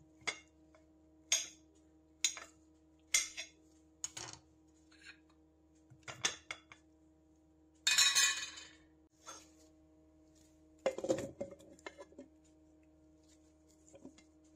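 A utensil clinks sharply against a ceramic plate about five times in the first few seconds as a peeled banana is cut into chunks, with a few more clinks after that. A second-long scrape follows, then duller knocks as the chunks go into a plastic food processor bowl.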